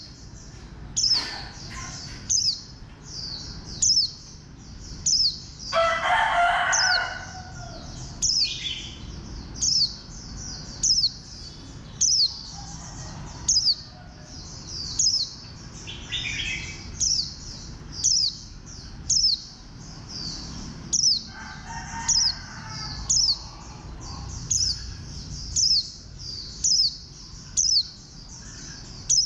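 White-eye (vành khuyên) calling: sharp, high chirps that slide downward, repeated about once a second. A longer, lower call comes about six seconds in, with shorter lower calls later.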